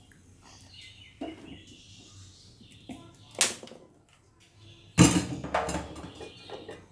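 Scattered light knocks and clinks of kitchen utensils against a cooking pot, with a louder clatter about five seconds in that dies away over a second.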